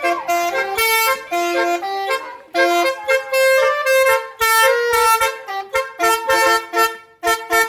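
Telolet basuri musical horn playing a tune: a run of short, stepped horn notes, several pitches sounding together, with brief breaks between phrases.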